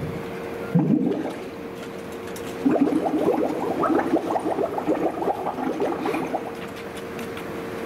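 Bubbling, gurgling water sound effect from a projection-mapping show's soundtrack over loudspeakers: a run of quick pitched blips from about three seconds in to about six, over a steady held tone.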